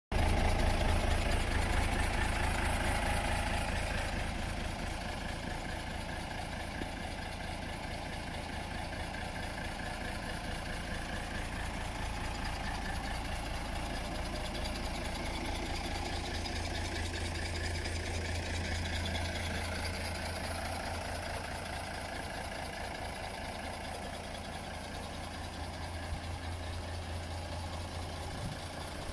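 Mercedes-Benz 814 truck's four-cylinder diesel engine idling steadily, a little louder in the first few seconds.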